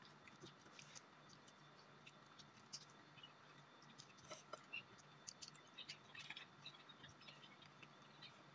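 Faint chewing and small, scattered clicks and crackles of people eating crispy fried chicken and rice by hand, over a low steady hum.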